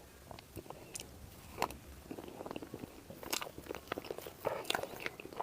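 Close-miked chewing and biting of food, with irregular crunches and mouth clicks that come thicker and louder in the second half.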